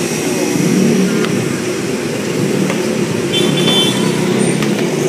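Road traffic with a motor vehicle engine running steadily close by, with a brief high squeak about three and a half seconds in.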